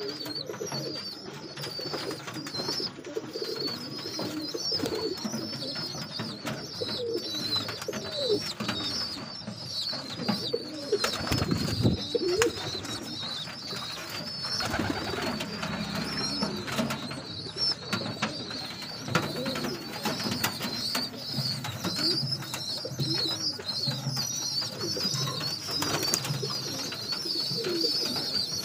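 Domestic pigeons cooing repeatedly in a wooden nest box, with wing flaps and scuffling in the straw about halfway through. A steady high-pitched chirping runs underneath.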